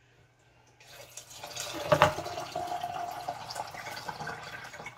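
Water poured from a kettle through a metal canning funnel into a glass mason jar of dry beans. The pour starts about a second in, and the tone of the filling jar rises as it fills.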